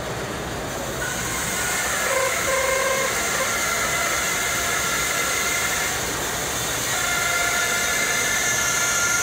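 Large vertical bandsaw cutting through a thick block of wood, a steady hiss with a thin whine that comes in about a second in and again near the end.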